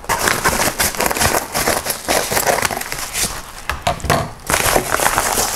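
Padded paper mailer crinkling and crackling as it is handled and torn open by hand, with a short lull a little after four seconds.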